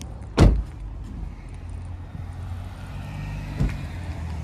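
A vehicle engine running with a steady low rumble, with one sharp thump about half a second in and a softer one near the end.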